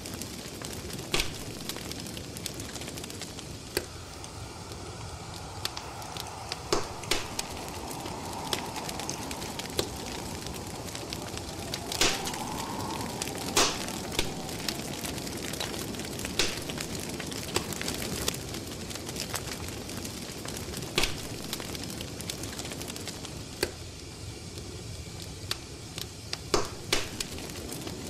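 Wood fire crackling: irregular sharp pops and snaps over a steady hiss. A faint wavering whistle sounds from about four seconds in for roughly ten seconds.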